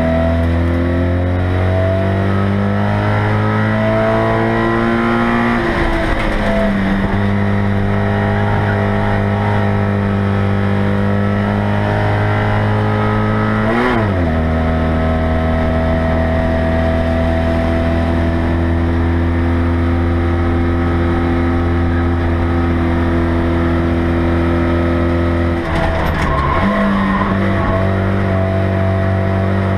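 Citroën 2CV race car's air-cooled flat-twin engine, heard from inside the cabin, running hard. It climbs in pitch for the first few seconds, drops back with a gear change, then holds mostly steady revs, with short breaks in the note near the middle and near the end.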